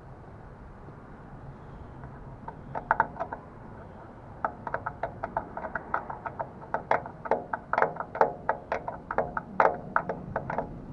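A hand tool scraping and clicking against a corroded light socket or contact to clean it. The sharp clicks come in an irregular run of several a second, starting about two seconds in, over a low steady rumble.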